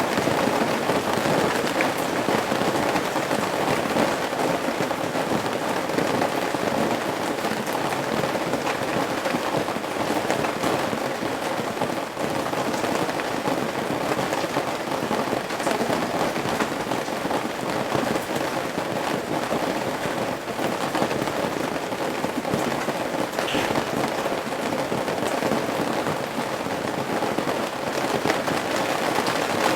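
Steady rain falling on and running off a roof's eaves: a dense, even rush of drops with many small drop strikes, still heavy and not yet easing.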